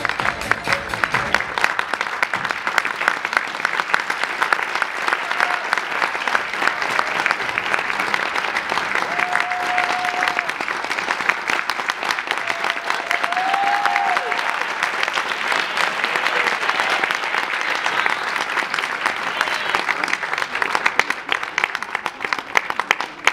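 Theatre audience applauding steadily as the dance music ends in the first couple of seconds, with a couple of short cheers rising above the clapping midway.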